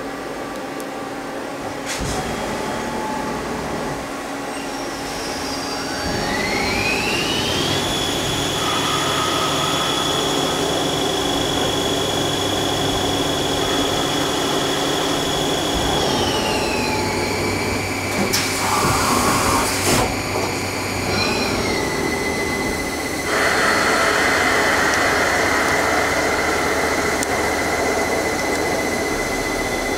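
Mazak CNC lathe running a part program with flood coolant. The spindle whine rises in pitch as the spindle speeds up about six seconds in, holds steady while the part is turned, then steps down in pitch twice as the spindle slows for the next tool. Coolant spray and cutting noise run underneath, with a louder hiss from about two-thirds of the way in.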